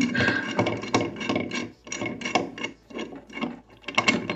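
Faucet mounting nut being turned up the threaded shank under a sink: a run of irregular clicks and scraping, about two or three a second.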